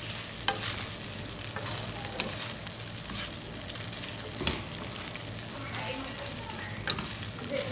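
Rice and egg noodles sizzling in a hot wok as they are tossed with two wooden spatulas, with a steady frying hiss. A few sharp knocks come from the wooden spatulas striking the pan.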